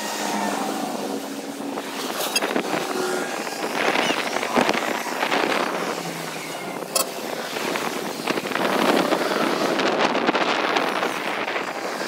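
Road traffic going past on a highway, swelling as vehicles pass about four seconds in and again around nine seconds, with a few sharp clicks.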